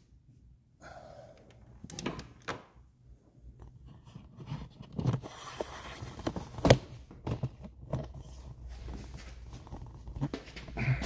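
Handling noise: scattered knocks and clothing rustle as someone moves around a snowmobile with a multimeter and test leads, with one louder thunk a little before seven seconds in.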